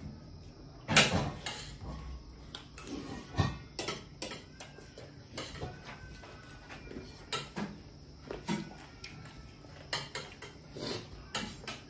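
Cutlery and dishes clinking and knocking during a meal: irregular sharp clicks of varying loudness, the loudest about a second in.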